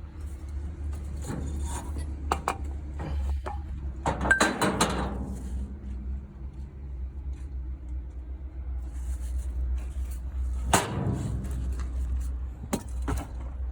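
Diesel truck engine idling with a steady low drone, with several clanks and knocks over it, the loudest about four seconds in and another about eleven seconds in.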